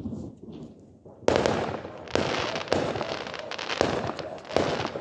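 Aerial fireworks going off: a sharp bang about a second in, then four more over the next few seconds. Each bang is followed by a rush of noise that slowly fades.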